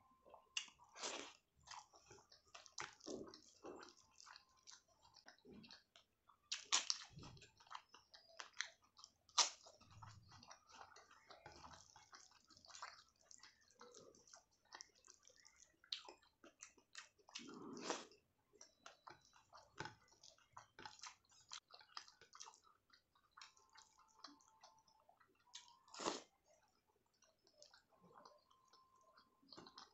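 Close-miked eating sounds of a person chewing and biting food: irregular small mouth clicks, with a few louder, sharper crunches scattered through.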